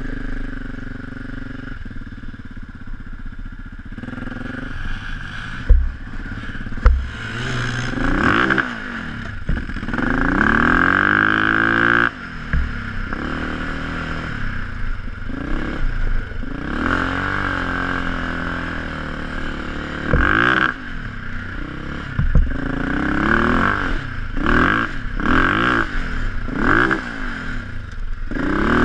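A Bombardier DS650 sport quad's single-cylinder four-stroke engine running steadily at first, then revving up and dropping back again and again as it accelerates and shifts. Two sharp knocks come about six and seven seconds in.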